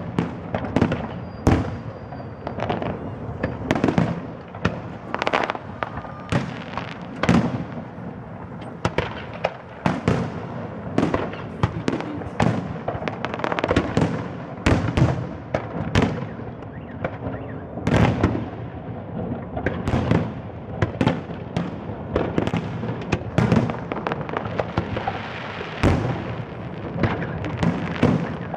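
Fireworks display: aerial shells bursting in a rapid, irregular series of bangs, about one or two a second.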